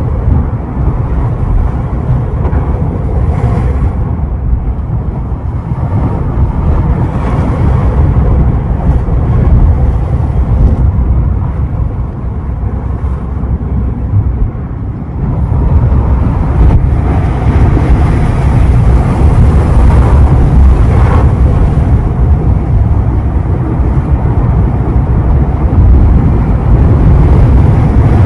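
Sea surf washing ashore, mixed with wind buffeting the microphone as a deep, steady rumble. It grows louder a little past halfway through.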